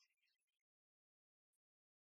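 Near silence: the tail of the theme music dies away in the first half second, then dead silence with one faint click.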